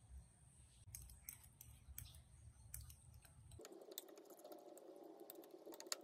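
Faint clinks and scrapes of a metal fork stirring in a glass bowl, more frequent in the second half. A faint low rumble cuts off about three and a half seconds in.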